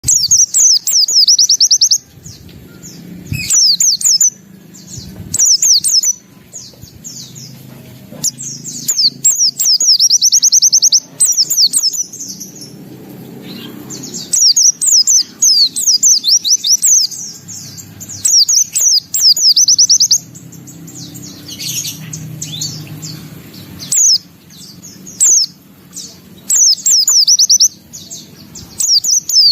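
White-eye (pleci) singing in repeated phrases of fast, high trills and chirps, each phrase lasting a second or two with short pauses between.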